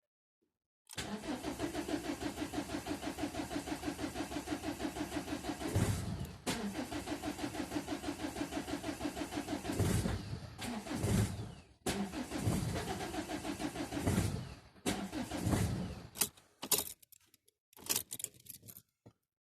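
Ford Mondeo Mk4 1.8 TDCi diesel engine being cranked from cold: the starter turns it over in a steady rhythmic chug in three long attempts, each broken by brief loud coughs as the engine fires and dies without settling into an idle. This is the hard cold start the owner is showing; the sound stops near the end.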